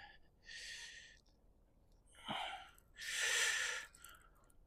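A man breathing hard, with three audible breaths, the last the longest and loudest, from the exertion of playing a hooked thornback ray on the rod.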